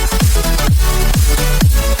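Electronic dance music with a steady kick drum beat, about two beats a second.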